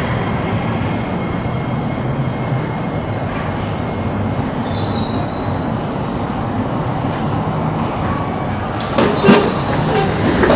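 Singapore MRT train moving along the track in an underground station, a steady rumble with a high wheel squeal lasting a couple of seconds about halfway through. A sharp knock near the end is the loudest moment.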